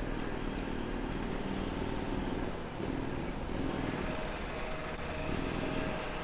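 City street traffic: motor vehicles passing with a wavering engine hum over a steady rush of traffic noise.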